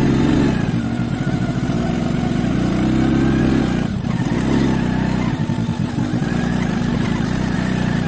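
Motor scooter engine running under way on a rough, muddy road. The engine note dips briefly about four seconds in, then picks up again.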